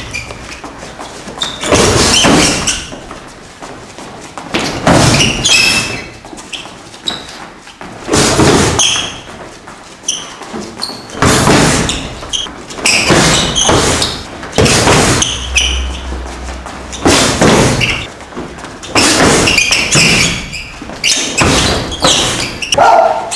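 Karate punches and kicks landing on hand-held strike pads: a series of sharp smacks, one every second or two at an uneven pace, echoing in a large hall.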